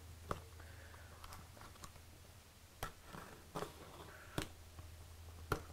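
A taped cardboard box being opened by hand: the tape along the lid seam is slit open, with a few sharp light clicks and faint scraping of the cardboard.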